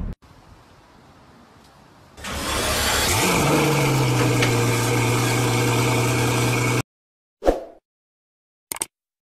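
Pagani Huayra's twin-turbo V12 starting on the remote key: it turns over about two seconds in, catches, and its revs drop and settle into a steady idle. The sound cuts off abruptly near the end, followed by two brief short sounds.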